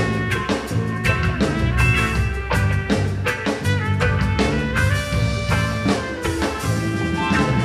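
Live band playing an instrumental passage, with drum kit and guitar over held instrument notes and a steady beat.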